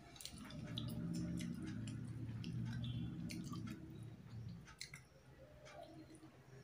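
Chewing, with the soft squish of rice and fish curry being mixed by hand on a steel plate and scattered small clicks.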